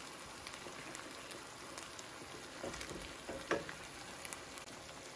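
Ground turkey and bell pepper frying in a nonstick pan, a steady sizzle. A few short knocks from the silicone spatula against the pan come past the middle, the loudest about three and a half seconds in.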